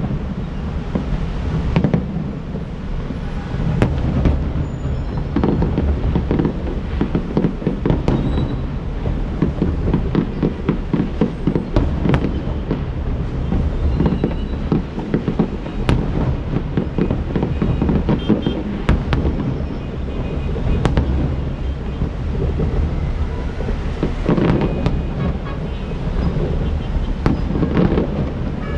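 Fireworks show: a continuous low rumble of booming shell bursts, with many sharp bangs going off throughout.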